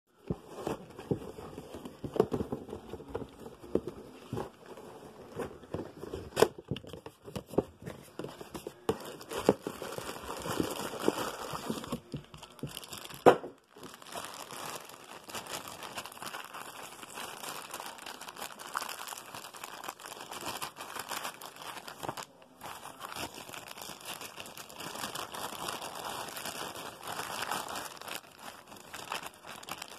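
Plastic packaging crinkling and a cardboard figure box being handled, with scattered knocks and one sharp knock about 13 seconds in. After that, steadier crinkling as the plastic bag around the figure's base is handled.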